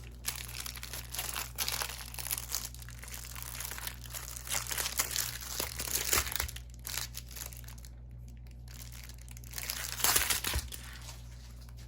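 Plastic-covered diamond painting canvas and its packaging crinkling and rustling as the painting is pulled out and handled, with a louder burst of crinkling about ten seconds in.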